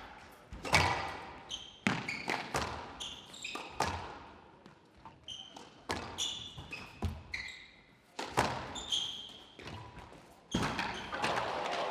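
A squash rally: the hard rubber ball cracks off rackets and the court walls at uneven intervals of about a second, each strike echoing in the glass court, with short rubber-soled shoe squeaks on the court floor between shots.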